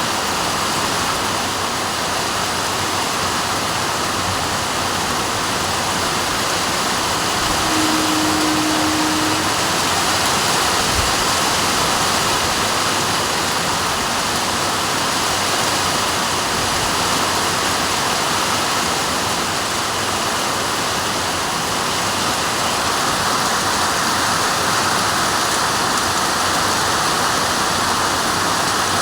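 Heavy rain falling in a steady, even hiss. A short low steady tone sounds for about two seconds roughly eight seconds in.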